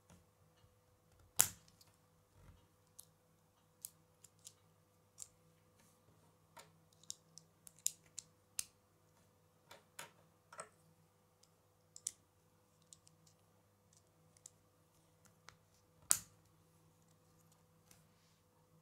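Plastic K'nex pieces clicking and snapping as connectors and a rod are fitted onto a small toy wheel. The light clicks are scattered and irregular, with two louder snaps, one about a second and a half in and one near the end.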